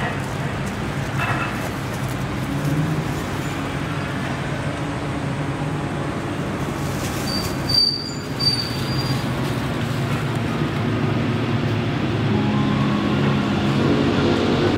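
Steady street traffic noise with a low engine hum, broken a little over halfway through by a brief high squeak and two short sharp sounds.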